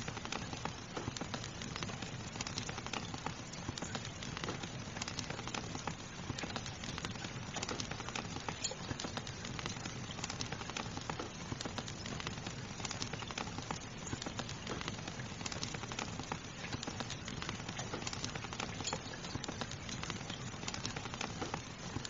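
Steady rain mixed with a crackling fire, with frequent small pops and snaps over the even hiss of the rain.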